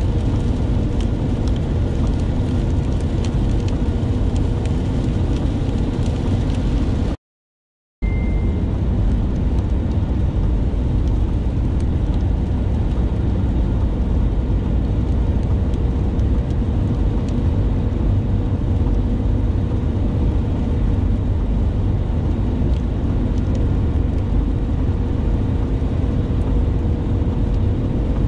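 Steady road noise inside a moving vehicle at highway speed on a wet road: a low rumble of engine and tyres with a faint steady hum. The sound cuts out completely for under a second about seven seconds in, then resumes unchanged.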